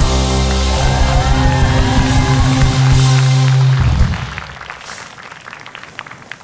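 Rock-style TV show theme music with drums and guitar, closing on a long held chord that dies away about four seconds in, leaving faint studio room sound.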